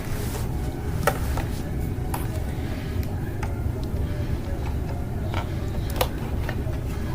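A few scattered light clicks and knocks of plastic gear being handled, over a steady low hum: the AC cord being hooked up to an old camcorder.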